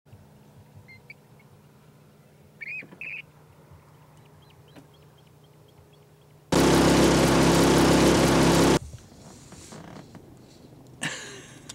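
A few short, high bird chirps over a quiet background, about a second in and again near three seconds. Then a loud two-second burst of hiss with a steady hum starts and cuts off sharply. Quieter scattered noises and clicks follow.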